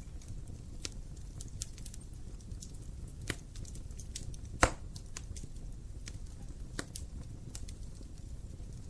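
Wood fire burning in a fireplace: a steady low rumble with scattered sharp crackles, and one loud pop about halfway through.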